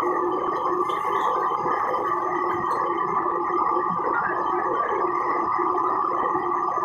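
Steady roar of a commercial wok range's gas burners, with the range's tap running and a couple of brief metal clinks of a ladle against a wok.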